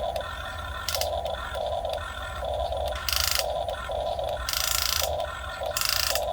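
Short bursts of scraping from a Huina 1550 RC excavator working sand, four times, the longest about half a second. Underneath runs a pulsing sound that repeats about twice a second.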